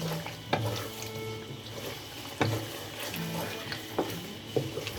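Chicken karahi with cream cooking in the karahi, sizzling faintly while a spoon stirs it, with a few sharp clinks of the spoon against the pan.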